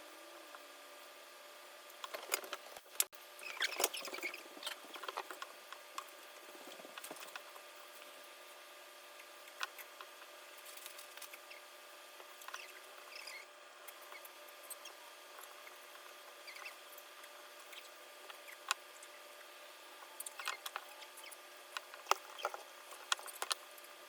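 Scattered light clicks, taps and scratches of small plastic parts and a small tool being handled on the disassembled mini RC crawler. They come in a few short clusters over a steady faint hum.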